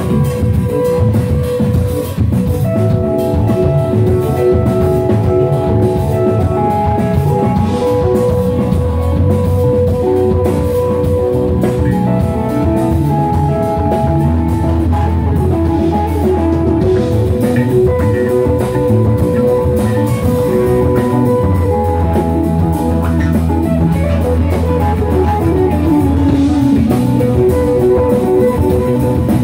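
Live rock band playing loudly: electric guitars and drum kit with keyboard, holding long sustained notes over a steady beat.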